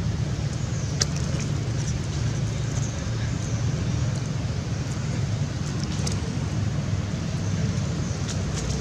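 Steady low outdoor rumble, with a few faint clicks about a second in, near the middle and near the end.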